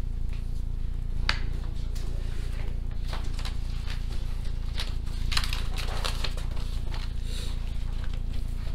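Large mounted drawing boards being handled and swapped on an easel: scattered rustles, scrapes and knocks, a sharp one about a second in and clusters in the middle, over a steady low hum.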